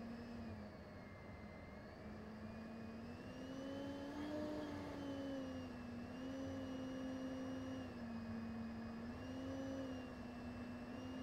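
Jet aircraft's engine heard from on board, a steady whining tone that glides up and down in pitch several times as the throttle changes.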